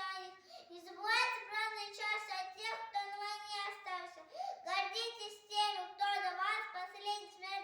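A young girl's high voice performing in Russian, half-sung, with drawn-out, wavering notes and short pauses between phrases.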